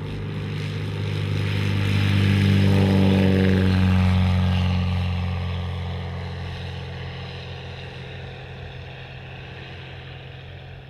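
Brumby 600 low-wing light sport aircraft taking off at full power: a steady engine-and-propeller drone that grows louder as the plane passes, peaking about three seconds in, then fades as it climbs away.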